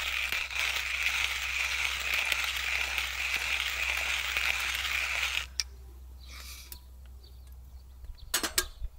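Hand-cranked coffee grinder crunching coffee beans in a steady grinding rasp that stops about five and a half seconds in. A few light metal clinks come near the end as a kettle is set on the small wood stove.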